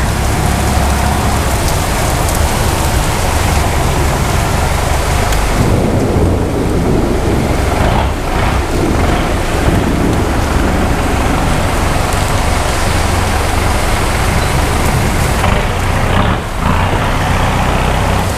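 Heavy rain pouring steadily with a low rumble of thunder underneath.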